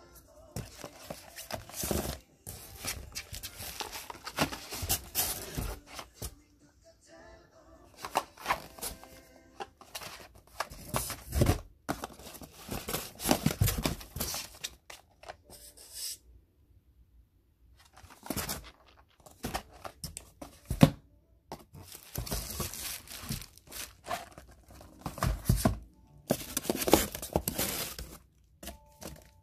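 Crinkling and rustling of foil sheet-mask packets and cardboard packaging being handled, in irregular bursts with a short pause about halfway through.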